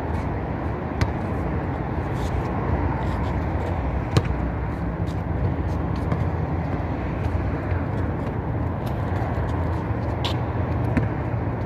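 A steady low rumble of outdoor background noise, with a few scattered sharp thuds of a basketball bouncing on the concrete court.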